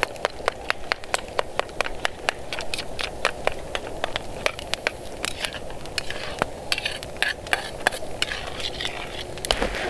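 Wood fire crackling with many irregular sharp pops, over a steady low hiss from a pan of meat and water simmering on the fire.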